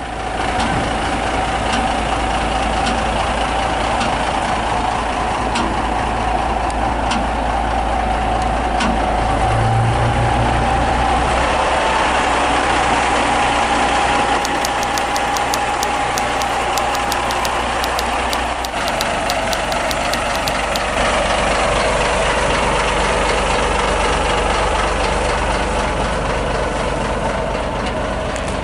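Komatsu wheel loader's diesel engine running steadily, with a steady whine over the engine drone and a rapid ticking for several seconds midway.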